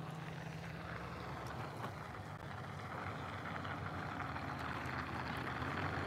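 A vehicle engine idling with a steady low hum, under a rushing hiss that grows louder in the second half.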